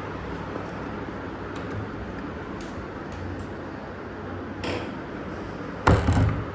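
Steady background rumble, with a short clink about two-thirds of the way in and a loud knock and clatter near the end.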